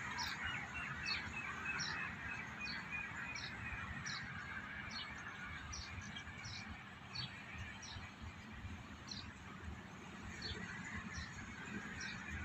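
Birds calling outdoors: one short, high chirp repeats every half second to a second over a busy chatter of other bird calls, which thins out after the first couple of seconds. A low rumble runs underneath.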